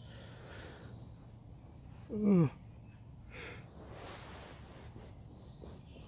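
A man's drowsy vocal sigh, a short groan falling in pitch about two seconds in, followed by a breathy yawn. Faint bird chirps come and go in the background.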